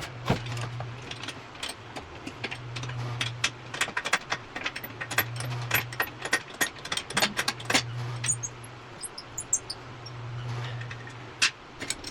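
Metal tools clicking and clinking against metal parts during disassembly of a wheel hub and brakes: a rapid, uneven scatter of sharp clicks. Under them a low hum swells and fades about every two and a half seconds.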